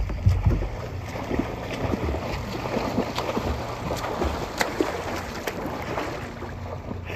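Lake water lapping and sloshing right at the microphone at the water surface, with many small sharp splashes and crackles.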